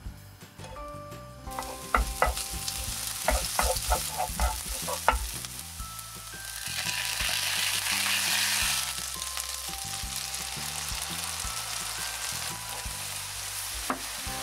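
Chopped green onions sizzling in hot oil in a nonstick frying pan, with a spatula clicking and scraping against the pan as they are stirred. Soy sauce poured in a few seconds in makes the sizzle louder for about two seconds, and then it settles back to a steady sizzle.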